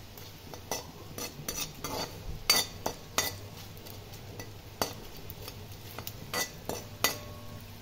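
Metal spoon scraping and clinking against a metal kadhai, stirring edible gum (gond) as it fries and puffs up in ghee. The strokes come irregularly, with one sharp knock about two and a half seconds in, over a faint sizzle.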